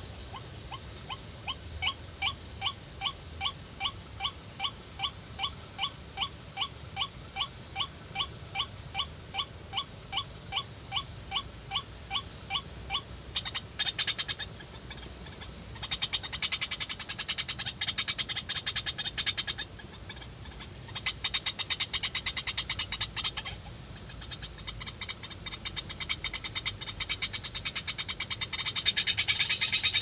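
White-breasted waterhen calling: a long series of short repeated notes, about two a second, that grows louder, then breaks into harsh, rapid chattering in long bouts, loudest near the end.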